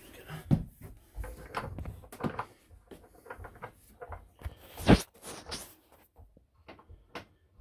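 Irregular knocks, clicks and rustling of hands working up under a bathroom sink cabinet, fitting a new faucet's connections, with one louder thump about five seconds in.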